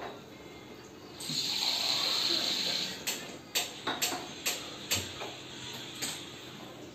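A hiss lasting about two seconds, then about six sharp pats of hands on a baby's oiled skin, roughly half a second apart.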